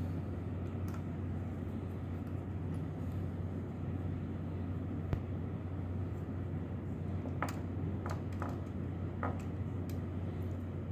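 A handful of light clicks from a screwdriver and small screws being worked on the OPS module's case, bunched together a little past the middle, over a steady low hum.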